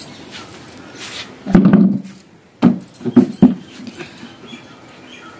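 A dog barking: one longer bark about a second and a half in, then four short barks in quick succession.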